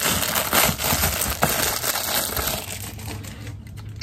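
Clear plastic packaging bag crinkling loudly as hands open it and pull out a plastic claw hair clip, dying down near the end.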